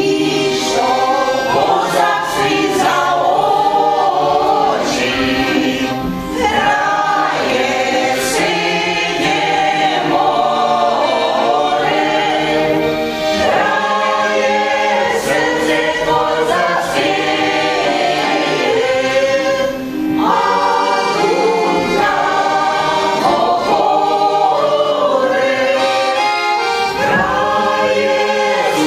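Ukrainian folk choir of women and men singing a folk song to accordion accompaniment, with short breaks for breath about six and twenty seconds in.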